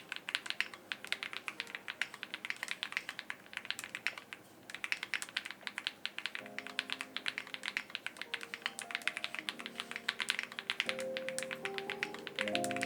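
Rapid typing on a Meletrix Zoom65 v2 mechanical keyboard, a quick run of key clacks with a brief pause about a third of the way in. Soft background music with held tones comes in about halfway and grows under the typing.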